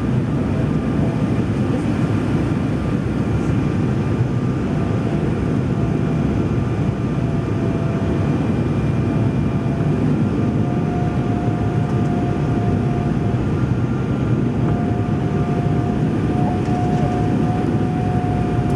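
Cabin noise of an Embraer 190 jet airliner descending to land, heard from a seat over the wing: a steady, loud rush of airflow and engine noise, with a thin whine that steps up slightly in pitch about ten and again about fifteen seconds in.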